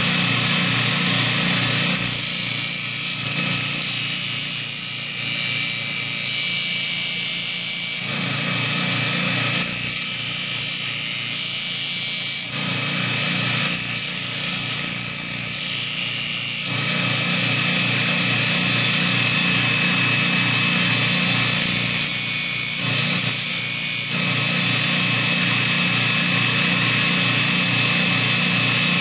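Baldor half-horsepower bench grinder running a 100-grit belt on a 10-inch expander wheel, with a steel farrier's fuller ground against the belt to reshape its damaged edge. A steady motor hum with a grinding hiss over it, the sound shifting several times as the tool is moved across the belt.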